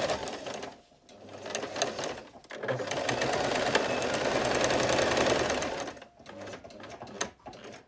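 Electric household sewing machine stitching a seam in stops and starts: a short run, a pause about a second in, a steady run of about three seconds, then a few short runs with clicks before it stops.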